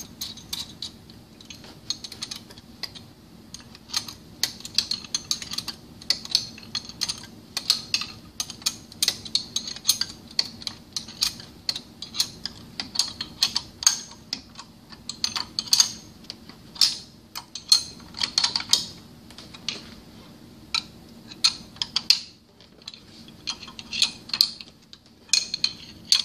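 Wrench tightening the gland-plate bolts of a pump's mechanical seal to torque: a long run of rapid, irregular metallic clicks, over a steady low hum.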